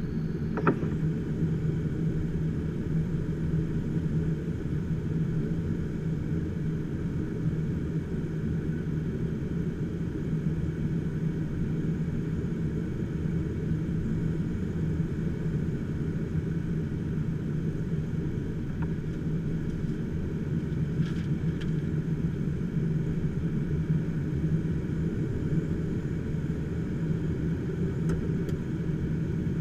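Diamond HK-36 Dimona motorglider's engine and propeller running steadily in flight, heard from inside the cockpit.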